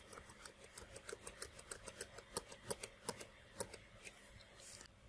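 Rapid light clicking from computer input, about four clicks a second, stopping a little before the end.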